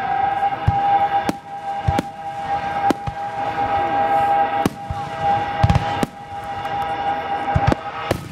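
Aerial fireworks shells bursting overhead: a run of sharp bangs and booms about once a second, irregularly spaced, with a heavier boom past the middle. A steady high tone continues underneath.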